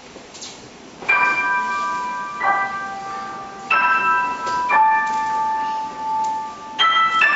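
Grand piano played solo: after about a second of quiet, slow chords high on the keyboard, each struck and left ringing for a second or so, with two quicker strikes near the end.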